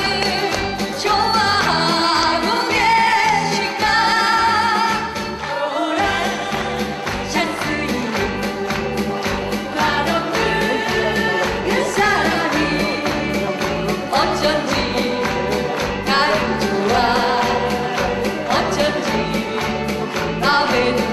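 Several women's voices singing a Korean trot song together into microphones, over an upbeat backing track with a steady bass beat.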